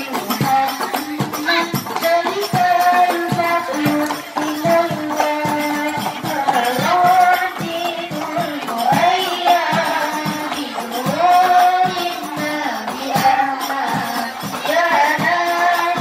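Girls singing an Islamic sholawat devotional song in unison into microphones, accompanied by steady, rhythmic hand-struck frame drums.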